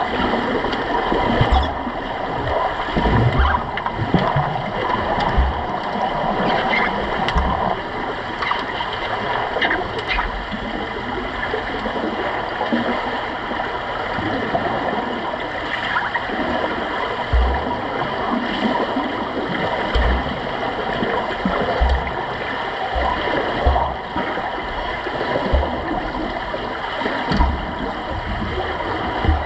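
Muffled underwater wash of a swimming pool picked up by an underwater camera during underwater rugby: a steady rushing, gurgling noise with faint clicks and scattered low thumps.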